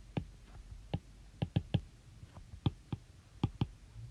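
About nine sharp, irregular clicks, some in quick runs of two or three, like buttons or keys being pressed.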